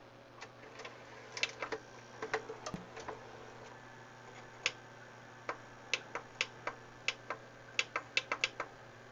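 A series of irregular sharp clicks from the front-panel buttons of a VCR/DVD combo player being pressed again and again, sparse at first and coming quicker in the second half, over a faint steady hum.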